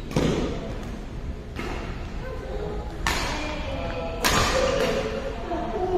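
Badminton rackets hitting the shuttlecock back and forth in a rally: about four sharp smacks, roughly a second and a half apart.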